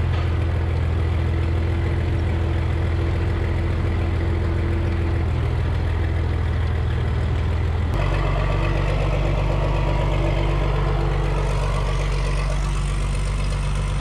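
Tractor engine running steadily under load while it powers a feed mixer wagon unloading feed, with a steady drone from the mixer. The tone shifts lower about eight seconds in.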